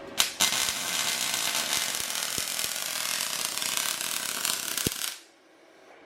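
Electric welding arc crackling and hissing in one continuous run of about five seconds while a weld bead is laid. It starts with a sharp click and stops abruptly when the trigger is released.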